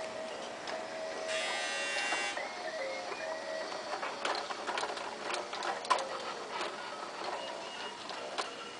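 Baby bouncer's electronic toy tune playing in simple beeping notes, with a short buzzy burst about a second in, then a run of sharp plastic clicks and rattles from the toy being kicked and bounced.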